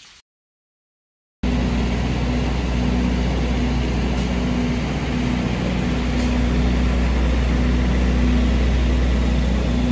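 A motor vehicle's engine running steadily with a deep low rumble, starting abruptly after a second of silence.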